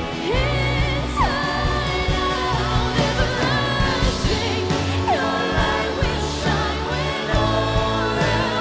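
A live worship band playing, with a woman singing the lead vocal, sustaining the word 'Everlasting', over guitars and drums with a steady beat.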